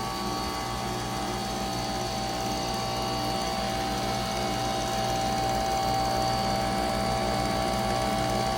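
2024 Bryant heat pump running on its new Emerson Copeland scroll compressor: a steady mechanical hum with several constant tones over it, holding an even pitch and level throughout.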